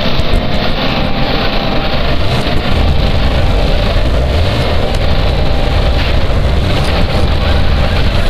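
Harsh noise music: a loud, dense wall of noise, heaviest in the low end, with no break.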